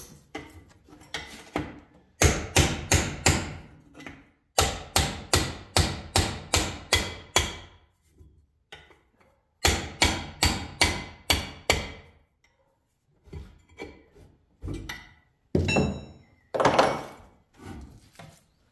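Hammer blows on a chisel at the seam of a Baldor Reliance electric motor's front end bell, driving the end bell off the motor frame. The blows come in quick runs, about three a second, with short pauses between runs.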